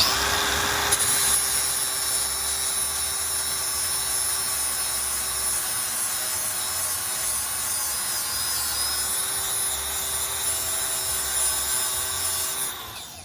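Angle grinder grinding down a weld bead on steel, running steadily with a whine over the grinding noise, and stopping near the end.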